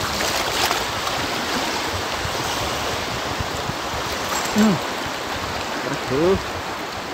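Steady rush of small waves on open sea water, with wind on the microphone. A person's voice makes two short sounds late on.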